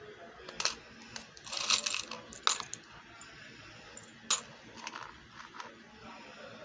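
Small metal charms clinking against one another as a hand picks through a plastic box piled with them: a scatter of sharp clicks and jingles, thickest in the first half, with a single loud click a little after four seconds.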